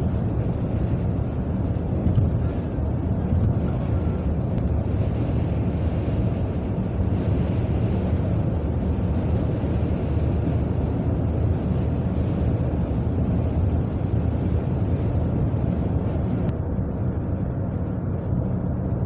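Car driving at highway speed, heard from inside the cabin: a steady drone of road and engine noise.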